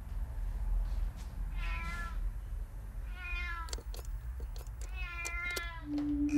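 A domestic cat meowing three times, the last call the longest, with a few sharp clicks from a door handle being worked.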